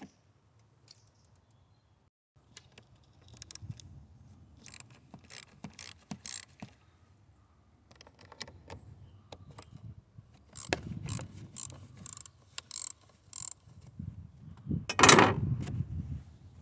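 Hands and metal tools working around a car battery in the engine bay, making scattered clicks and rattles. About two thirds of the way in comes a run of evenly spaced clicks about half a second apart, and near the end a louder scrape.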